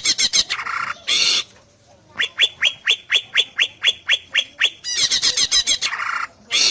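Cucak ijo (greater green leafbird) singing: a fast run of high notes, then a string of about a dozen quick sweeping whistles, roughly five a second, then another fast run of notes.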